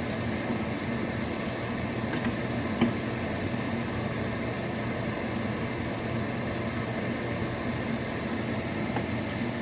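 Microwave oven running with a steady hum, heating the fudge mixture, with one short click about three seconds in.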